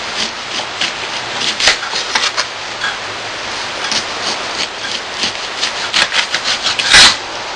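Small knife slicing the peel and pith off an orange, a run of short scraping, crackling cuts over a steady hiss. A louder knock comes about seven seconds in.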